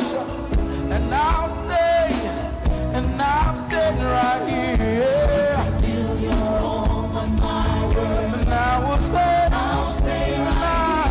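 Live gospel worship music: a singer's voice gliding through long, bending runs over band accompaniment with bass and drums.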